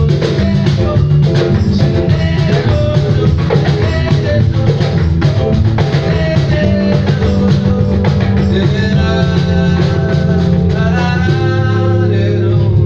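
Live band playing a pop song on electronic keyboard, hand drums and drum kit, with a man singing over it in the second half.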